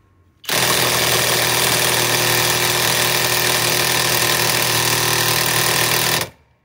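Kobalt KIW1240 24-volt mid-torque cordless impact wrench on speed 3, hammering continuously for about six seconds on a 1 1/2-inch nut that does not break loose. It starts about half a second in and cuts off suddenly near the end.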